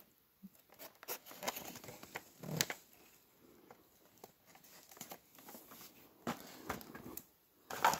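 Plastic blister packaging and cardboard toy boxes crinkling and rustling as they are handled, with scattered light taps and knocks. A louder knock and rustle comes near the end.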